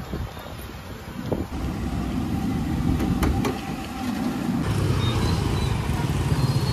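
Street traffic: a steady low rumble of passing vehicles, with two sharp clicks about three seconds in.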